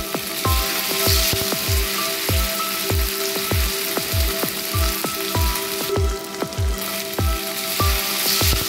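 Seer fish steaks coated in masala sizzling as they shallow-fry in hot oil in a non-stick pan. Background music with a steady beat, about two thumps a second, plays over the sizzle.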